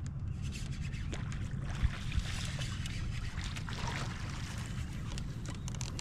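Water splashing and rustling as a hooked bass is dragged through matted grass at the surface. A steady low rumble runs underneath.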